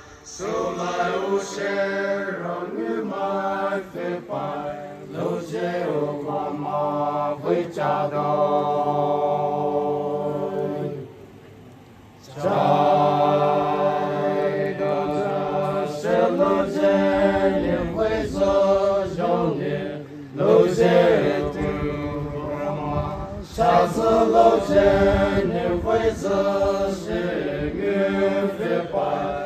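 Voices singing a slow traditional Naga chant together, holding long notes that shift in pitch. The singing breaks off briefly about eleven seconds in, then resumes.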